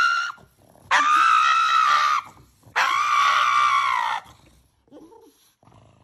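Pug screaming while its nails are clipped. The end of one scream is followed by two long, steady, high-pitched screams of about a second and a half each.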